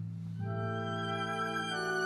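Classical violin playing long sustained notes with vibrato over lower accompanying notes; a new note begins about half a second in and another near the end.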